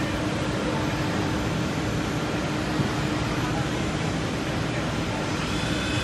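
Five-axis CNC wood router running as its spindle head swings around the workpiece: a steady tone under a loud, even wash of machine noise, with faint voices in the background.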